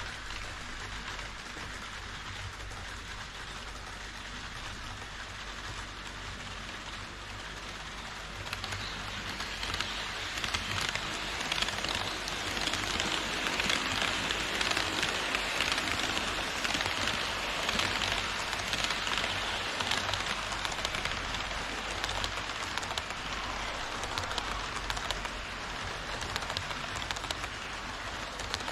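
HO-scale model train running on plastic viaduct track: a steady rolling rattle of metal wheels on the rails and rail joints. It swells from about nine seconds in as the double-headed EF81 locomotives and Twilight Express coaches pass close by, then eases off. A low steady hum sits underneath throughout.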